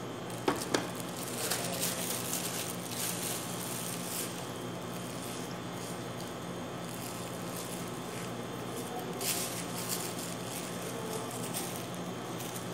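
Thin plastic bag crinkling and rustling in the hands as it is twisted and tied shut, in short bursts, with two sharp knocks about half a second in, over a steady low hum.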